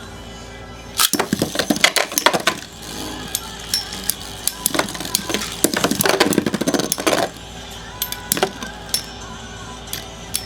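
Two Metal Fight Beyblade spinning tops clashing in a stadium: a rapid, dense rattle of sharp metal-and-plastic clacks starts suddenly about a second in. It thins to scattered single hits after about seven seconds.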